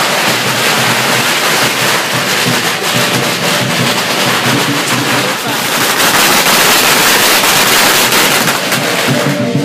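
A string of Chinese firecrackers going off in a dense, rapid, unbroken crackle of sharp pops, loudest in the last few seconds before it thins out near the end.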